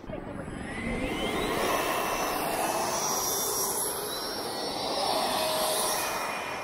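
Electric ducted fan of a Freewing Avanti S 80mm RC jet spooling up with a rising whine over a steady rush of noise, getting louder about a second in as the jet runs down the runway for takeoff.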